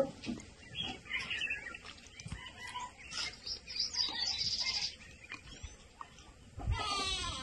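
Wild birds calling in dry bush: scattered short high chirps, then a quick rattling call near the end.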